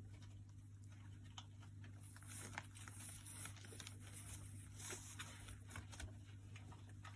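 Pet rat moving about: faint scattered taps and scratches with a few brief rustles, over a steady low hum.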